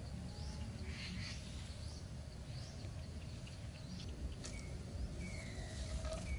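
Birds calling over a low rumble: short rising chirps through the first few seconds, then a series of brief whistled notes repeating about every half second from about five seconds in.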